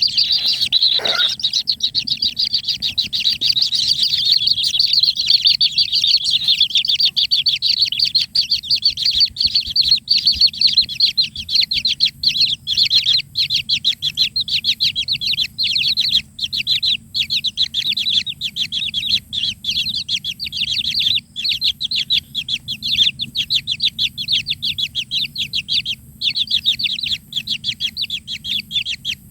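Kingfisher nestlings begging: a dense, unbroken stream of rapid high chirps, several to the second.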